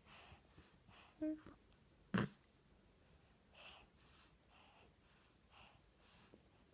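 Two-month-old baby's quiet breathing in short, soft breaths, with one brief coo about a second in and a sharp click about two seconds in.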